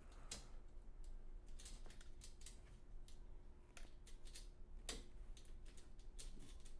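Irregular light clicks and taps of small metal and plastic kit parts being handled and fitted by hand, over a faint steady hum.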